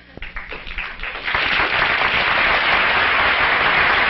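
Studio audience applauding: a few scattered claps at first, swelling to steady, full applause about a second in.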